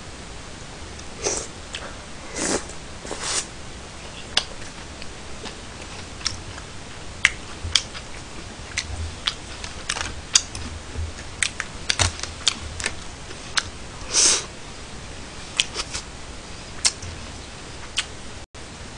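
Close-miked eating: chewing and mouth sounds with irregular sharp clicks of chopsticks against plastic takeout containers, and a few short louder rushes of noise.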